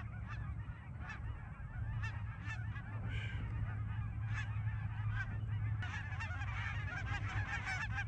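A large flock of lesser Canada geese calling overhead: many high, short yelping honks overlapping in a continuous chorus that grows fuller toward the end. A low steady hum runs underneath.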